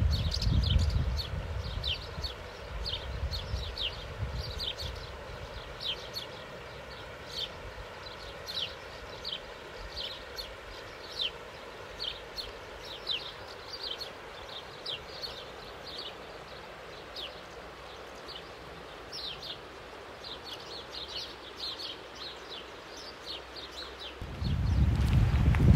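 A bird calling over and over, with short high chirps that slide downward, about one or two a second. Under them is the steady rush of river water. A low rumble of wind or handling on the microphone is loudest at the very start and comes back about 24 seconds in.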